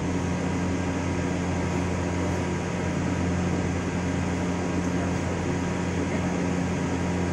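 Steady machine hum with a low droning tone from a powered-up CNC turning lathe standing idle, its fans and drives running but not cutting.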